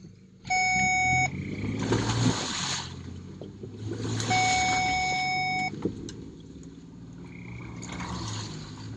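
A car horn sounds twice, a short blast near the start and a longer one of about a second and a half midway, over the vehicle's engine running, with its revs surging in between.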